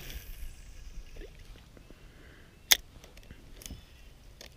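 A cast on a spinning rod and reel: a fading hiss of line paying off the spool, then one sharp click from the reel a little under three seconds in, with a few faint clicks after it.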